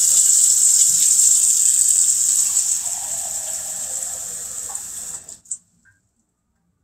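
Kitchen sink faucet running a steady stream of water; about three seconds in the sound takes on a lower ringing note as the stream fills a glass measuring cup. The tap is shut off suddenly about five seconds in, followed by a single click.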